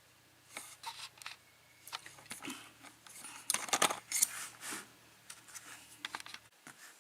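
Light metallic clicks and clinks of small hand tools and a lock being handled, irregular, with a busier flurry a little past halfway.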